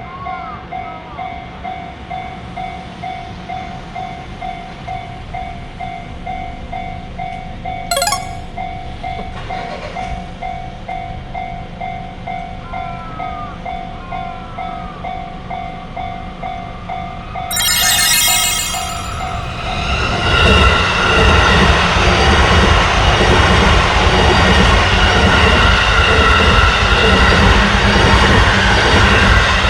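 Japanese level-crossing alarm bell ringing in an even, repeating rhythm. About seventeen seconds in, an electric commuter train sounds its horn for about two seconds. From about twenty seconds it passes close by, a loud rumble over the rails that drowns out the bell.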